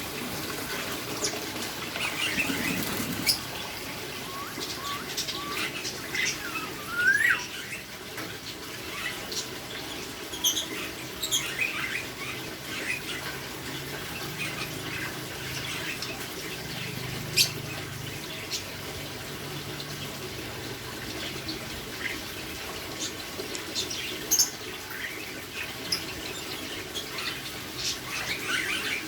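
Lovebirds chirping and squeaking in short, scattered high calls, with a few sharp clicks, over a steady background hiss.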